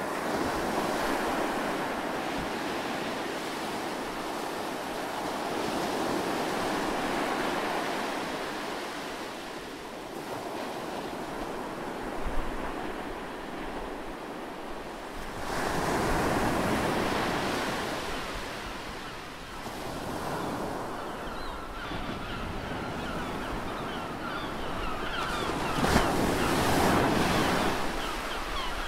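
Ocean waves rolling in and breaking on a shore, the surf swelling and fading every few seconds, with wind.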